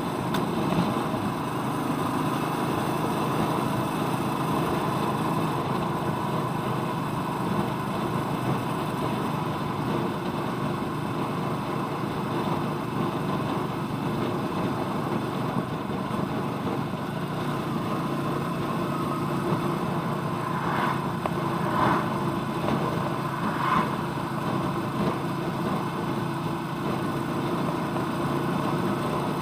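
Royal Enfield Meteor 350's single-cylinder engine running steadily while the bike is ridden, with road and wind noise.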